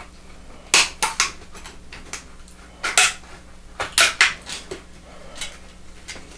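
Tin snips cutting through thin tin flashing: a series of sharp metallic snips at uneven intervals, several in quick succession.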